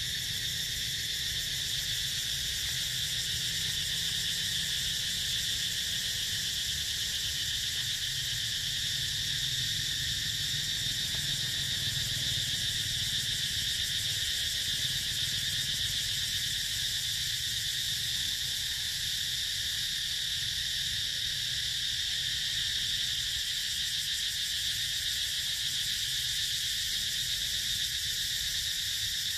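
A steady, unbroken high-pitched insect chorus droning, with a low rumble beneath it.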